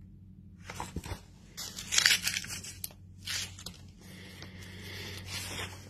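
Paper rustling and crinkling in several short bursts, with a longer stretch near the end, as a sheet of paper and book pages are handled.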